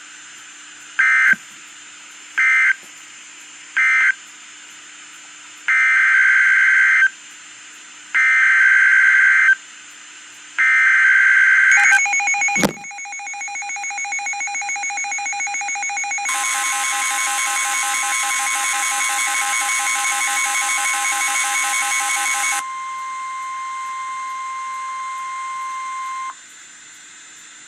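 Emergency Alert System tones. First come three short data squawks of the end-of-message code, then three longer bursts of the digital SAME header for the next alert. After a click, a harsh, buzzy attention signal sounds, with a steady high tone in it that carries on alone for a few seconds before cutting off.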